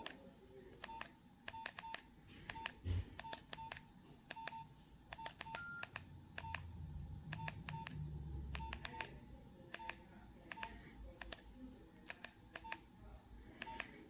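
Nokia 3590 keypad tones: a short beep with a faint key click at each press of the menu keys, in quick, uneven runs and pairs. One slightly higher beep comes near the middle, with a soft handling thump and some low handling rumble.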